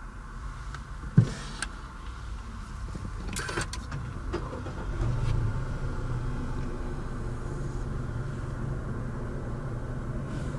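A sharp click about a second in, then the 2015 Mazda6's engine starts about five seconds in and settles into a steady low idle.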